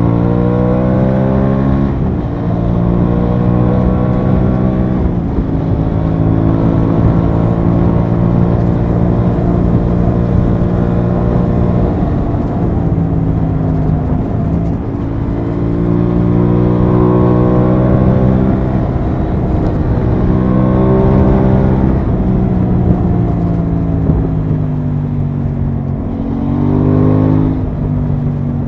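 Onboard sound of an Aprilia Tuono 660's parallel-twin engine under way. Its pitch climbs under throttle and falls away several times as the bike rolls off and pulls again, with a quick rev up and back down near the end. A steady low rush of wind runs underneath.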